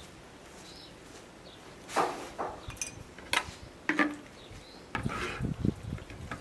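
A metal knife clicking against a wooden salad bowl a few times as chopped herbs, cucumber and salt are stirred. About a second before the end, a hand starts tossing the wet chopped salad, a soft, busy rustle.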